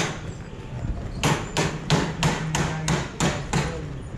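A quick run of sharp knocks, about three a second, eight in all from about a second in, each ringing out under a vaulted brick roof.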